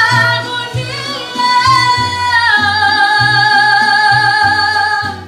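A woman singing a Spanish-language ballad live over a musical accompaniment with a pulsing bass line, ending on a long held note that stops just before the end.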